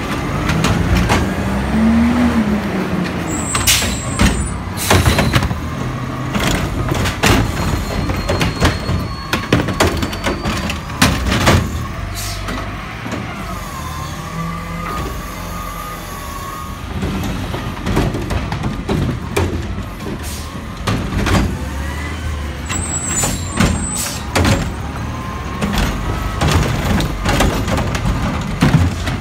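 Automated side-loader garbage truck collecting curbside carts: its diesel engine revs up and down as the hydraulic arm lifts and dumps the bins, with repeated clanks and bangs of the carts against the truck. Short air-brake hisses come twice.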